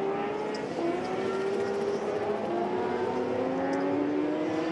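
Race-circuit engine running under moderate load, its note rising slowly in pitch and dropping back a little a few times.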